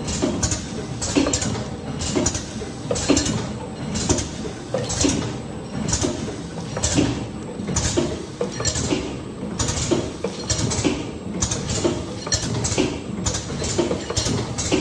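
SJ-Y1 liquid filling and packaging machine running, its mechanism clacking in a steady rhythm of about one cycle a second.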